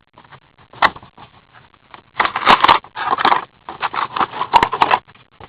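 Trading card packaging being handled and opened: irregular rustling and scraping bursts with a few sharp clicks, loudest in the second half.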